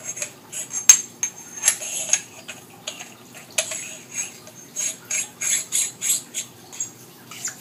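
A crown cap being screwed by hand onto a metal barrel shroud tube: a run of small metal clicks, clinks and thread scraping, with the sharpest clink about a second in.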